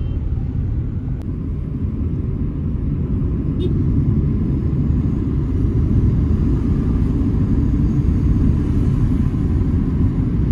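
Steady low rumble of engine and road noise inside a moving car's cabin, growing slightly louder about four seconds in.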